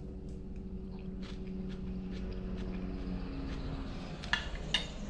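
Helicopter flying low overhead: a steady low drone with a hum that fades after about three seconds. Light clicks of a spoon and eating sit over it.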